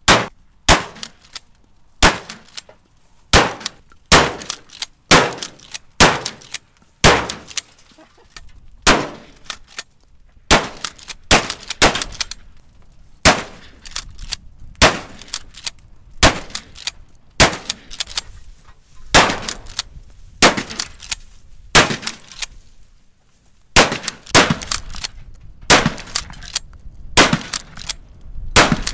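Gunfire into a burning pickup truck: dozens of single shots, one or two a second with a few brief pauses, each with a sharp metallic ring as rounds strike the sheet-metal body.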